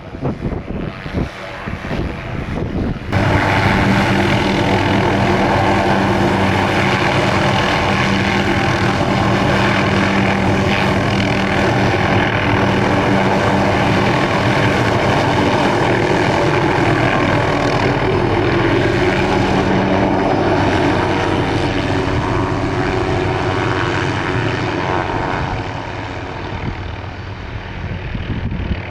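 MD 500E (Hughes 500) helicopter running loudly and steadily, its turbine and rotors making a continuous sound with a steady hum. It starts abruptly about three seconds in, after a fainter windy stretch, and eases a little near the end.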